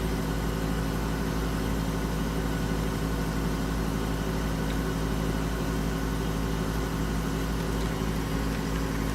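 Room air conditioner running with a steady, unchanging hum and whoosh of air.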